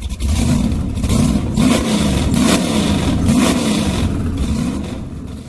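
A loud engine revving, its pitch rising and falling again and again, then cutting off suddenly.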